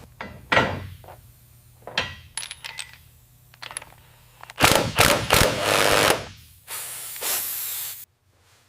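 Restoration tool sounds: scattered clicks and knocks, then about a second and a half of loud rushing noise about halfway through and a steadier, quieter stretch of it near the end.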